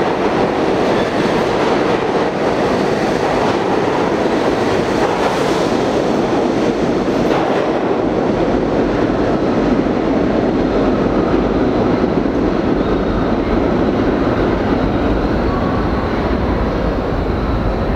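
New York City subway train in an underground station: a loud, steady rumble, with a deeper low rumble building near the end.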